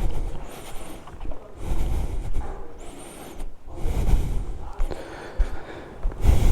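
A person's breathing close to the microphone: a loud rushing breath about every two seconds.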